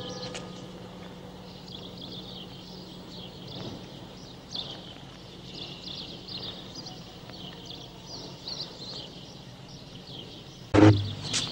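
Small birds chirping on and off over a low steady hum, with a loud sudden sound near the end.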